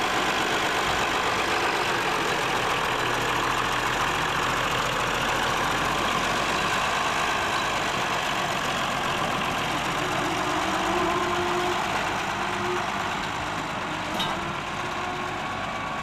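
1953 Oliver 88 tractor's six-cylinder diesel engine running steadily, growing a little quieter near the end.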